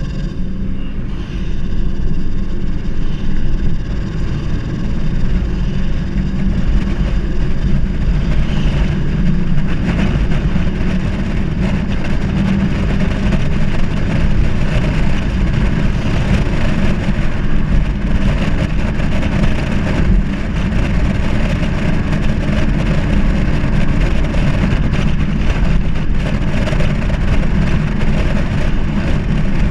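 Holden Commodore VR's 3.8-litre V6 engine and exhaust running steadily under load, with an uneven, rough-edged drone. The owner reports a stuttering sound from the engine or exhaust when accelerating, with the revs slow to climb.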